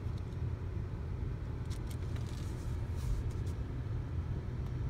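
Car moving slowly, a steady low rumble of engine and tyres heard from inside the cabin, with a few faint clicks.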